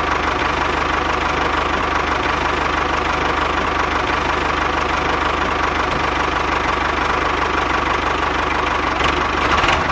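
Tractor-style diesel engine sound running steadily with an even chugging knock, a little louder near the end.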